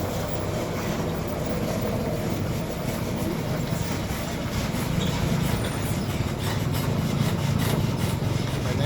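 Heavy road traffic: a steady low rumble of large truck engines with tyre and road noise.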